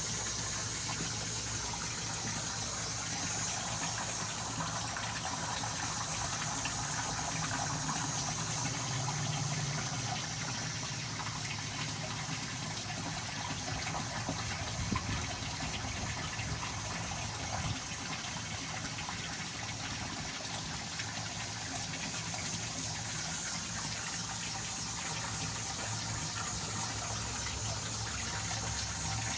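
Water pouring steadily into a cichlid pond, splashing and churning the surface.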